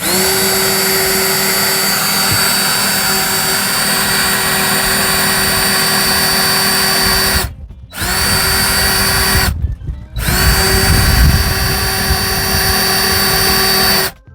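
Power drill running a Neiko titanium step drill bit against a metal electrical box, in three runs broken by short stops about seven and a half and nine and a half seconds in, louder in the last run. Started without a pilot hole, the step bit struggles to bite into the thick metal.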